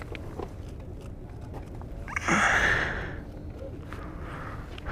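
A person's sigh, one long breath out about two seconds in, over a low steady rumble.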